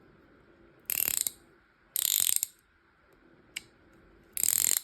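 Craftsman V-series ratcheting wrench being worked back and forth: three short bursts of rapid ratchet clicking, about a second in, about two seconds in and near the end, with a single click in between.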